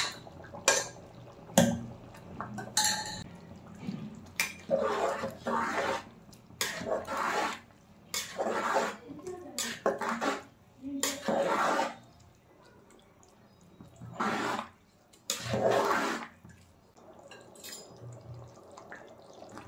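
Steel spoon scraping and knocking against a pan, then stirring through par-cooked rice and water in an aluminium pot in a series of wet, sloshing strokes with metal scrapes, which stop about seventeen seconds in.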